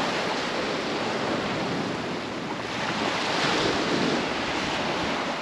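Sea surf washing onto the beach, swelling louder about three seconds in, with wind buffeting the microphone.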